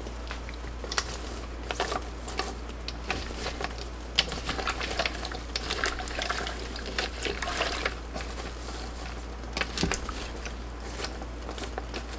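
Green beans being stirred and pressed down into brine in a large stainless steel stockpot with a wooden spatula: irregular wet rustling and sloshing with light knocks against the pot. A steady low hum runs underneath.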